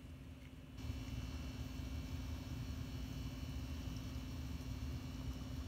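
A steady low mechanical hum with one constant tone, which gets louder about a second in and then runs on evenly.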